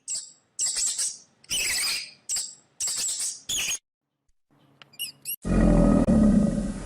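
Animal calls: a run of about six short, high-pitched squeaky calls, then after a short pause a loud, low animal call begins about five and a half seconds in and continues.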